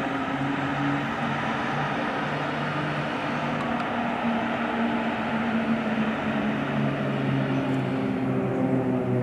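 A formation of nine Pilatus PC-7 single-engine turboprop trainers flying past: a steady propeller drone under a broad rushing engine noise. The higher part of the noise dies away near the end.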